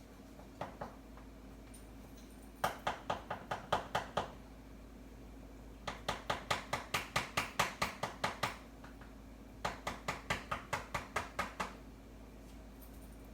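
A stirring utensil tapping against the sides of a saucepan of thickening chocolate pudding as it is stirred back and forth: three runs of quick, even taps, about five a second, with short pauses between. A steady low hum runs underneath.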